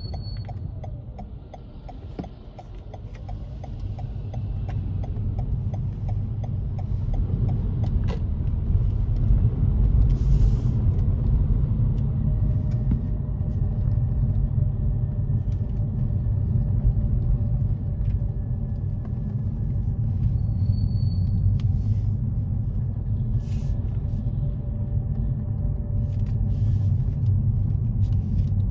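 A car's turn-signal indicator ticking steadily for the first several seconds, then engine and road rumble inside the car rising as it pulls away and settling into a steady drive.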